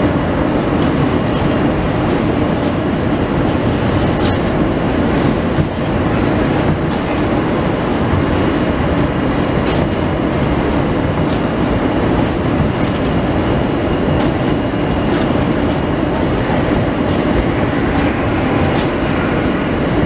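New York City Subway train running on an elevated track, heard from inside the car: a steady running noise of the train on the rails, with occasional faint clicks.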